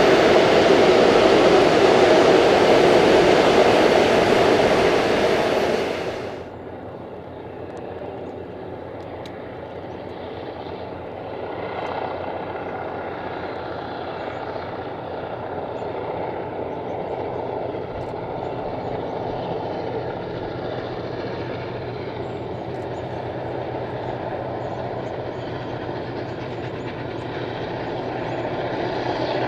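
Steam-hauled excursion train running: a loud rush of train noise for the first six seconds, then a sudden change to a quieter, steady train running sound.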